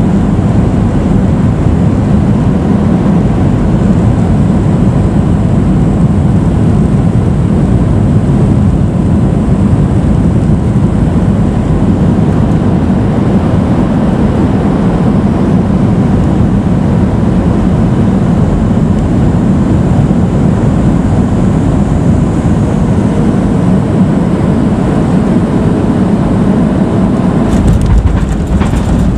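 Boeing 737-800 cabin noise on final approach: a loud, steady rush of airflow and CFM56-7B engine noise heard at a window seat over the wing. About a second and a half before the end come a few knocks and a deeper rumble as the aircraft is on the runway and the ground spoilers stand up.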